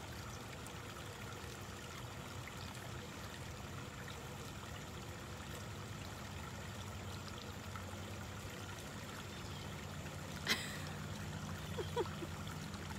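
Running water trickling and splashing steadily. A sharp click comes about ten and a half seconds in, and a couple of brief squeaks near the end.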